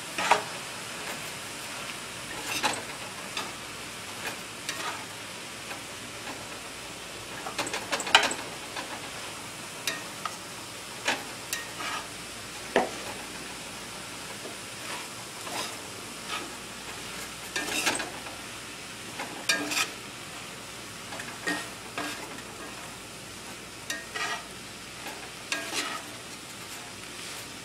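Fried rice sizzling in a cast-iron skillet as it is stirred and tossed with a spatula, with irregular scrapes and knocks of the spatula against the pan.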